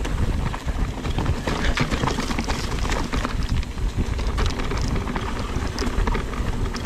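Mountain bike rolling down a dirt trail: a steady crunch and rumble of tyres over gravel and rocks, peppered with many small knocks and rattles from the bike.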